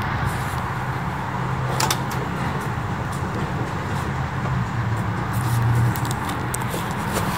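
The 1965 Mustang's K-code 289 High Performance V8 idling steadily, with a few light clicks about two seconds in and again near the end.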